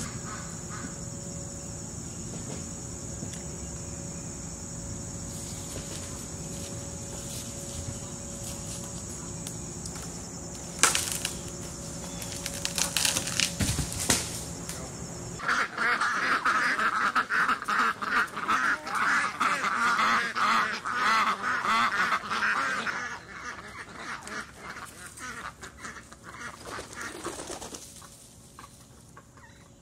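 Insects trilling steadily, with a sharp crack about eleven seconds in and crackling of dry wood as a dead tree is pulled over. From about halfway, domestic ducks quack in a dense, louder flurry that thins out near the end.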